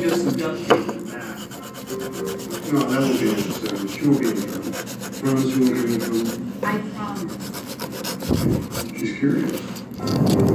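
Abrasive paper rubbed back and forth against the metal tubing of a mini bugle in fast, repeated scraping strokes while a joint is cleaned up. A sharp tap comes just under a second in.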